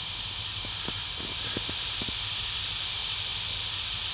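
Steady high-pitched hiss of night insects calling in chorus, with a few faint soft ticks in the first two seconds.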